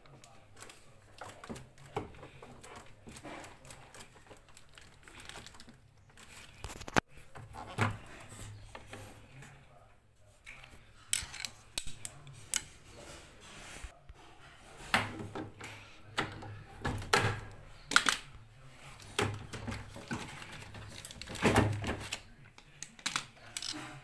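Irregular clicks, taps and knocks of screwdrivers and plastic parts being handled against a washing machine's metal base frame as its drain pump is worked loose. The clatter is sparse at first and grows busier and louder from about a quarter of the way in.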